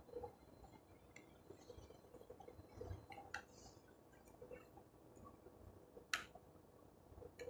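Near silence with a few faint clicks, the clearest about six seconds in and a smaller one about three seconds in: gloved hands handling a power drill, fitting a bit into its chuck.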